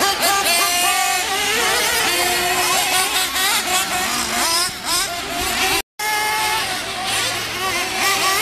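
Several nitro (glow-fuel) RC truggy engines revving as the cars race around a dirt track. Their overlapping pitches rise and fall with throttle. The sound cuts out for a split second about six seconds in.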